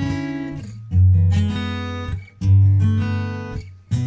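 Music of strummed guitar chords, each chord struck hard and left to ring and fade before the next, about every second and a half.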